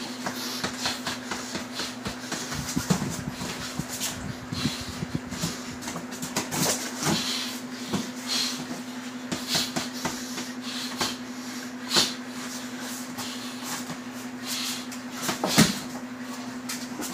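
Ground-and-pound punches from MMA-gloved fists thudding irregularly into a heavy bag on the floor, a couple of hits much harder than the rest, over a steady low hum.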